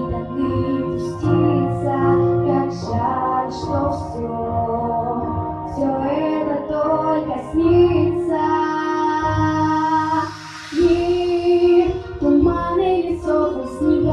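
A girl singing a song with instrumental accompaniment, with a short break in the sound about ten and a half seconds in.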